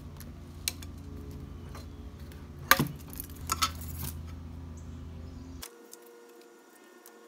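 Lid being pried off a metal quart paint can: a few metallic clicks, a sharp clink as the lid comes loose about three seconds in, then lighter clinks as the lid is set on the can.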